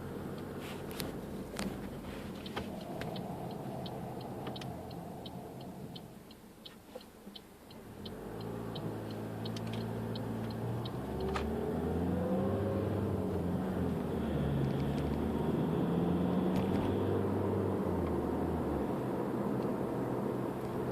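A 2013 Toyota RAV4's diesel engine and road noise heard from inside the cabin on a drive. About six seconds in the sound dies down as the car slows, and from about eight seconds it builds again as the car pulls away, the engine note stepping through gear changes. A fast, regular ticking runs through the first half.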